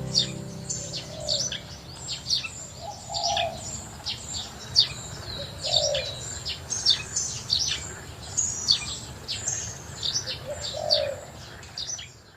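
Birds chirping: many short, quick, downward chirps, with a lower call now and then.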